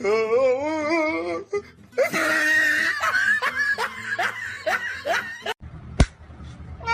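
People laughing hard: a high, wavering laugh, then a run of short 'ha-ha' bursts falling in pitch. It cuts off suddenly near the end, followed by a single click.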